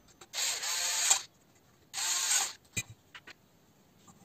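Small cordless electric screwdriver running in two short bursts, the first just under a second and the second about half a second, driving a screw into a buggy's metal chassis plate. A few light clicks follow.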